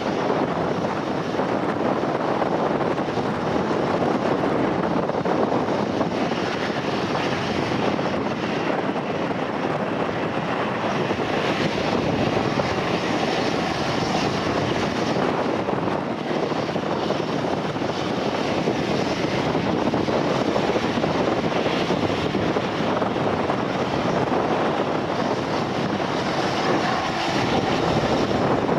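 Aircraft engines running with a steady roar that holds at an even level throughout.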